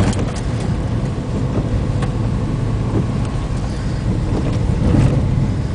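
A car driving on a wet dirt road: a steady low rumble of engine and tyres, with a few scattered clicks.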